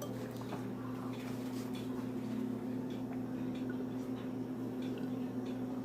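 A steady low hum with scattered faint light clicks.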